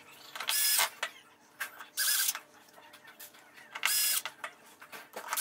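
Small cordless electric screwdriver driving mounting screws into a TV's metal chassis: four brief whirring runs of the motor, each about half a second long, spaced a second and a half or so apart.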